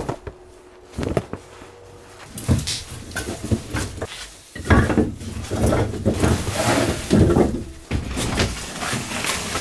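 Handling noise: split firewood knocking together in a canvas bag as the bag rustles, with bumps of gear being set down. A few sharp clicks come first, then a busy run of knocks and thuds from a couple of seconds in.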